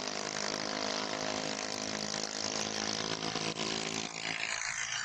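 Motorcycle engine running at a steady pitch, its note fading about four seconds in and leaving a hiss.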